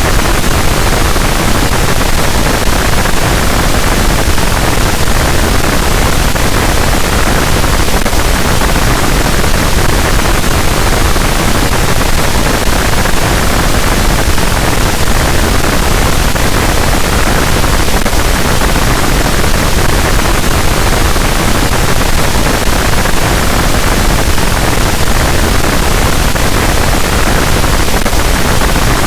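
Harsh noise wall: a loud, unchanging wall of dense static noise filling the whole range from deep rumble to high hiss, with no rhythm, pitch or breaks.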